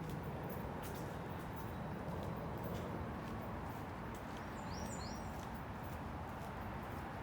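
Steady outdoor background noise with a few faint clicks, and a short two-note bird chirp, each note rising, about four and a half seconds in.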